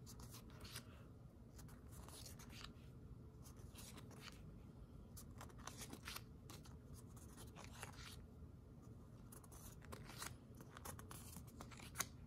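Faint rustling and light clicking of glossy sticker sheets being handled and flipped through one after another, with a few sharper paper snaps near the end.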